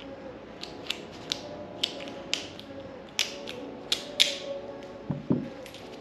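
Small metal lock parts clicking and tapping irregularly as they are handled and fitted, with two dull knocks about five seconds in, over a steady low hum.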